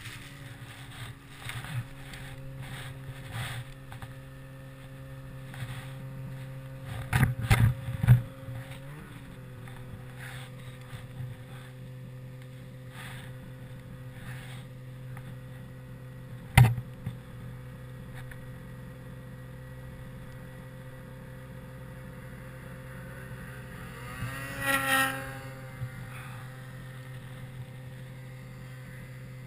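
Ski-Doo Summit 800 snowmobile's two-stroke twin engine running at a steady pitch. A cluster of loud thumps comes about seven seconds in, a single sharp knock past halfway, and a brief louder surge in the engine near the end.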